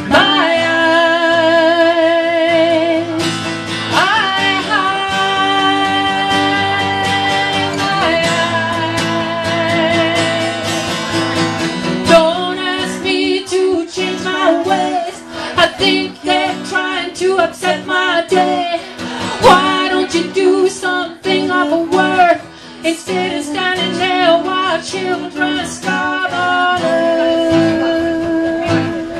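A live acoustic song: strummed acoustic guitar under a long-held, slightly wavering melody line. About twelve seconds in, the melody breaks into busier, shorter notes.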